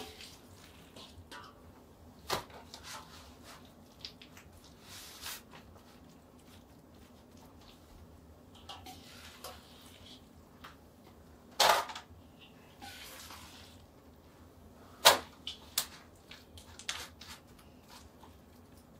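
Metal serving spoon scooping macaroni and cheese out of a large stainless steel mixing bowl into foil pans: soft scraping between a few sharp clanks of the spoon on the bowl, the loudest about three quarters of the way through.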